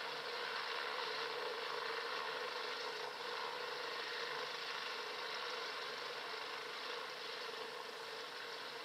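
An engine running steadily: an even drone with a constant hum and no change in pitch.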